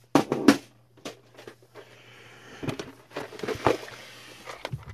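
Handling noises on a workbench: a few sharp clicks and knocks in the first second, then rustling and clattering with scattered louder knocks, as small parts and tools are moved about, over a low steady hum.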